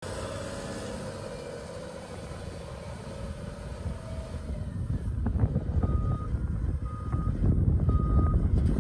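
Volvo A40G articulated dump truck's diesel engine running, growing louder from about halfway in as the hydraulic rams raise the dump body. From about six seconds in a warning alarm beeps about once a second.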